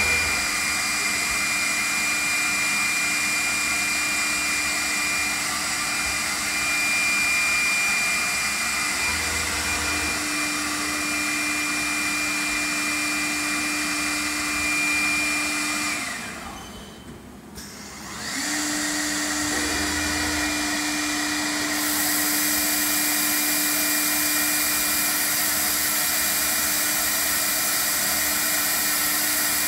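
Alfa CNC woodworking machine running: the spindle makes a steady whine over the rush of its dust extraction as the head machines a long wooden beam. About two-thirds of the way in, the sound drops away for about two seconds, then starts up again.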